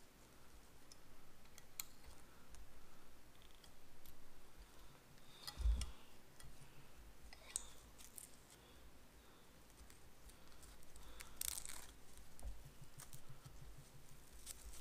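Faint handling sounds of hands working on an FPV racing quadcopter: scattered small clicks and rustles from a hex driver, the battery strap and the wiring, with one low knock about six seconds in and a longer rustle near the end.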